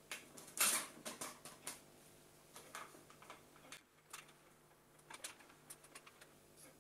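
Handling of a smartphone being slid into a wooden friction-fit phone holder on a tripod head and the mount being adjusted: a series of small clicks and knocks, the loudest one just under a second in.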